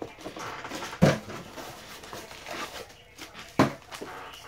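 Cardboard box and plastic bubble wrap being handled as a figure is pulled out: rustling and scraping, with two sharp knocks, about a second in and again some two and a half seconds later.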